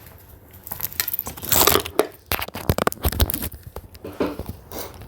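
Handling noise close to a phone's microphone: irregular rustling, crinkling and knocks.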